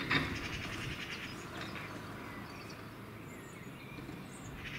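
Quiet outdoor background with a steady low hum, and a short rapid bird trill in the first second, followed by a few faint high chirps.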